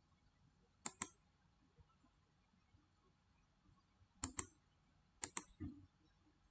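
Computer mouse button clicks, three quick pairs of sharp clicks: one about a second in and two a second apart in the second half, followed by a soft thump.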